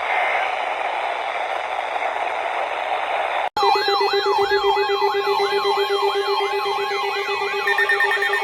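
Radio static hiss, cut off abruptly about three and a half seconds in by an electronic siren-style alert tone. The tone makes about three fast rising sweeps a second over a steady lower tone.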